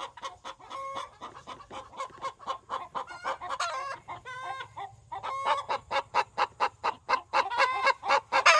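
Several young chickens clucking in many quick overlapping short calls, growing louder in the second half.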